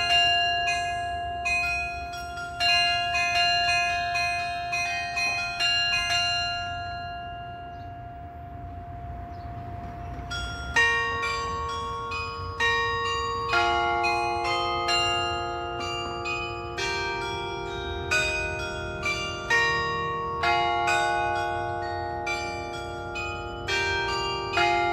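Tower carillon bells of a glockenspiel clock tower playing a melody, each struck note ringing on under the next. The tune pauses for about three seconds a third of the way in while the bells die away, then starts again.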